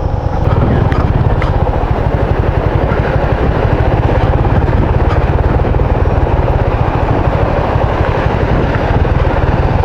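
Motorcycle engine running steadily under way, a low pulsing rumble with no let-up.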